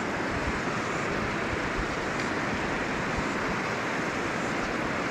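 Fast, bouldery river rushing steadily, an even wash of running water with no breaks.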